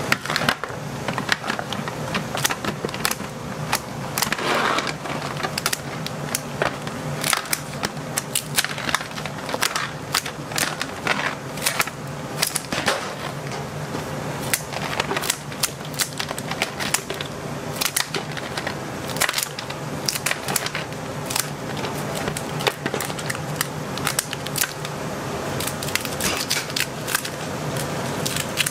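Cooked king crab being broken apart by hand: a long run of irregular sharp cracks and snaps of shell as legs and joints are pulled off, and pieces clicking on an aluminium tray, over a steady low hum.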